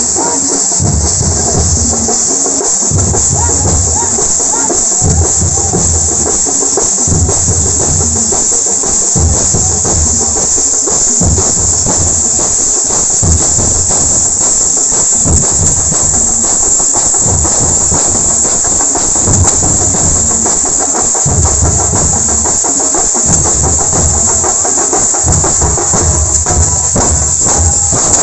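Loud festival percussion: drums beating heavily every second or two under a continuous shimmering clash of cymbals.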